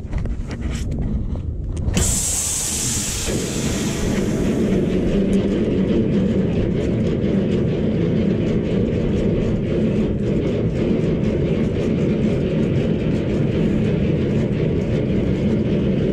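A flatbed trailer's landing legs being wound with a crank handle, the leg gearing grinding steadily. About two seconds in, a loud hiss starts suddenly and fades over a second or two.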